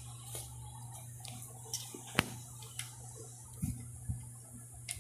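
Sparse light clicks and taps of plastic clothespins being handled, about eight in all, the sharpest a little past two seconds in, over a faint steady low hum.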